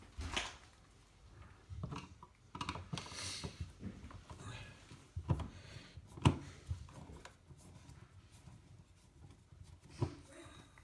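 Scattered short knocks and rustles, the loudest a sharp knock about six seconds in.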